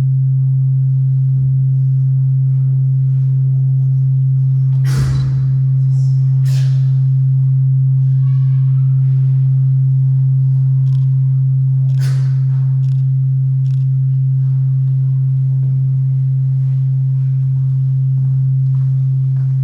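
A loud, steady, low pure tone, an electronic drone, holds unchanged throughout. A few brief rushes of noise sound over it, the strongest about five seconds in, then near six and a half and twelve seconds.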